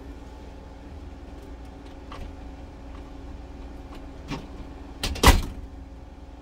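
A few light clicks, then a camper cabinet door shutting with a short, loud clatter about five seconds in, over a steady low hum.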